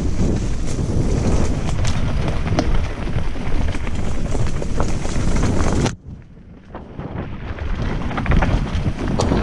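Wind buffeting the microphone on a fast mountain-bike descent, with tyres running over a dirt trail and frequent clicks and knocks from the bike over rough ground. The noise cuts out abruptly about six seconds in, then builds again.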